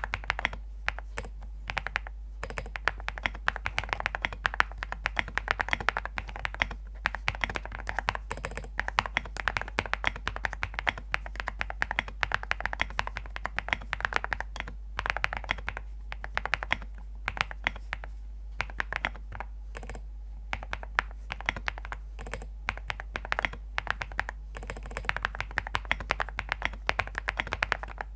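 Typing on a ZOOM65 mechanical keyboard with Graphite Gold switches, PC plate and full foam: fast runs of keystrokes with brief pauses between them, a tapping sound likened to small stones.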